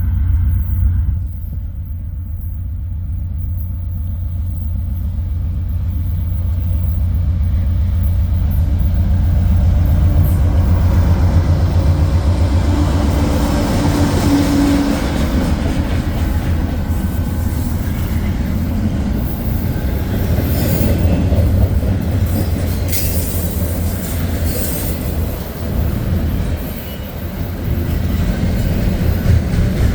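Diesel-electric locomotives of a long intermodal freight train (GE Dash 9-44CW and ES44AC) running past with a steady low engine drone, giving way about twelve seconds in to the louder rolling noise of the cars' wheels on the rails, with some wheel squeal.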